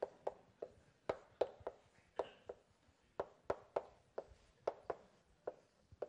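Chalk writing on a blackboard: an irregular run of sharp taps, two or three a second, as each stroke of the numbers strikes the board.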